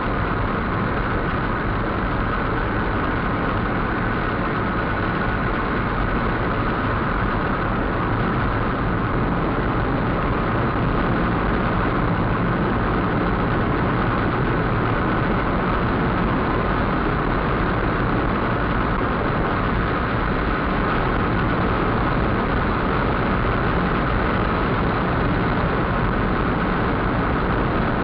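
Steady car engine and road noise heard from inside the cabin through a dashcam, the car cruising along a highway.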